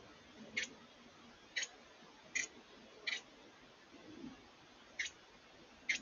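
Carolina wren giving short, sharp chip notes, six in a row, most about a second apart with one longer gap.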